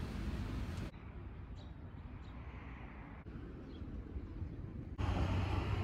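Outdoor ambience: a steady hum of distant traffic and wind, changing abruptly in level and character a few times, with a few faint short bird chirps in the quieter middle stretch.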